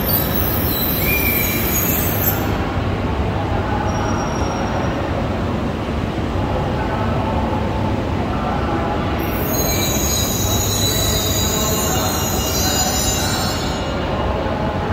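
Shinkansen train moving slowly past a station platform: a steady running rumble, with high-pitched wheel squeal during the first couple of seconds and again for several seconds from about the middle.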